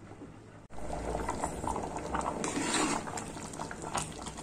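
Moong dal and rice khichdi bubbling in an open pressure cooker pot, with a ladle stirring through the thick mix. The bubbling is faint at first and turns suddenly louder and crackly about a second in, with many small irregular pops: the rice and dal are half-cooked.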